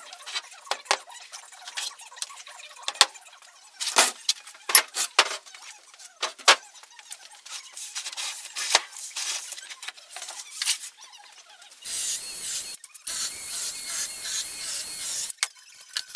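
Workshop handling noise: a scatter of short, sharp clicks and knocks as boards and tools are set down and worked. Near the end comes about three seconds of a cordless drill running, with a brief break partway through.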